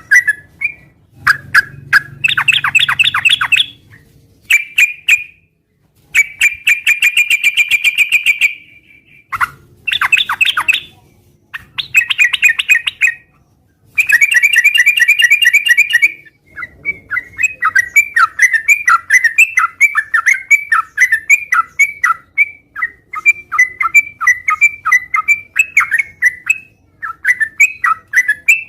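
Yellow-vented bulbul (trucukan) singing loudly and vigorously. Short bouts of rapid chirping notes are broken by brief pauses, and from a little past halfway it gives a long unbroken run of quick warbling notes.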